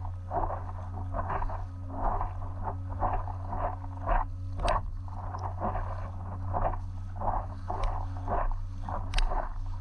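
Water splashing and lapping against an inflatable stand-up paddleboard while paddling, in an uneven rhythm of splashes every half second to a second, over a steady low rumble. Two sharp clicks stand out, about halfway through and near the end.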